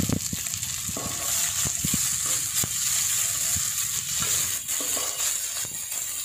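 Chopped tomatoes, fried onions and ginger-garlic paste sizzling in hot oil in a steel karahi, stirred with a wooden spatula that scrapes and knocks against the pan every so often.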